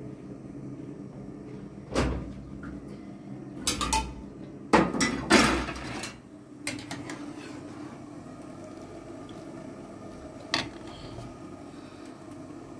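Kitchen clatter of cupboards and pots handled: a sharp knock about two seconds in, then a cluster of louder knocks and clattering a couple of seconds later, and a last single knock near the end, over a steady low hum.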